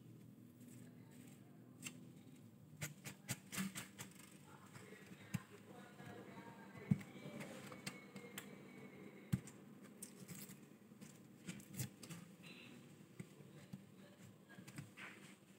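Faint, scattered small clicks, taps and scrapes of hand work on the nut of a Squier bass guitar, as the nut is fitted and shaped under loosened strings; a few sharper ticks stand out.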